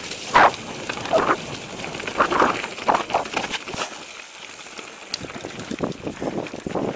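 Mountain bike riding fast down a dirt-and-stone singletrack: an irregular clatter and rattle of the tyres and bike jolting over the rough ground, easing to a smoother, quieter roll about four seconds in before the rattling picks up again.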